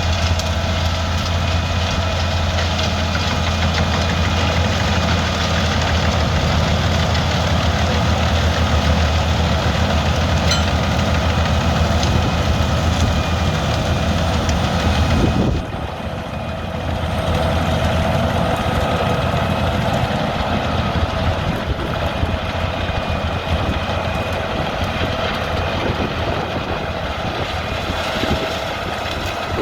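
Large Albach 700 HP biomass wood chipper running steadily. The sound changes suddenly about halfway through, when its deep low hum drops away.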